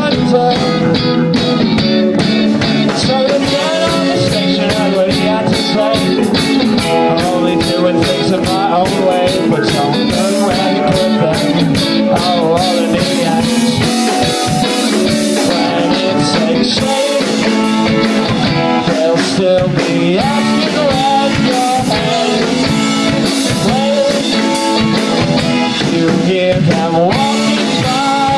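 Rock band playing live: two electric guitars, electric bass and a drum kit, with steady, dense drumming.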